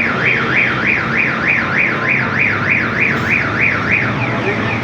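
Electronic alarm tone warbling up and down about three times a second, stopping about four seconds in.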